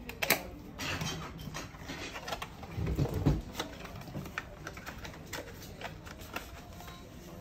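Packaging being handled: a quick run of small clicks and rustles, with a heavier thump about three seconds in.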